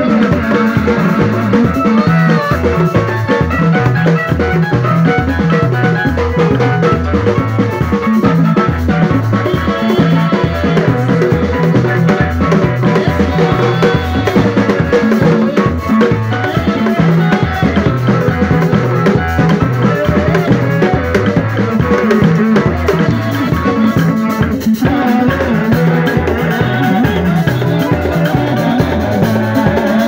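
Live church band music: three tall hand drums on a stand beaten with sticks and a drum kit keep a steady, fast rhythm, with other pitched instruments amplified through loudspeakers.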